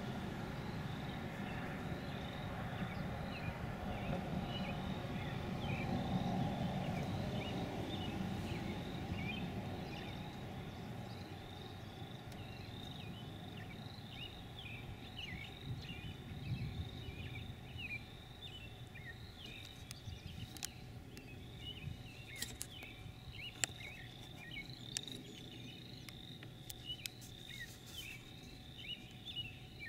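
Outdoor field ambience: a steady chorus of short, high-pitched chirps, several a second, from small calling animals, over a low rumble that fades about ten seconds in. A few sharp clicks near the end.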